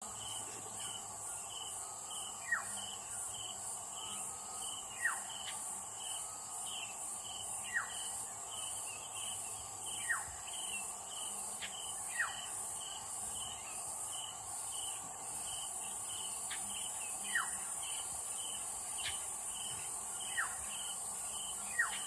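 A bird's short whistle sliding down in pitch, repeated every two to three seconds, over insects chirping steadily about twice a second; the insect pulsing smooths into a continuous high trill about two-thirds of the way through.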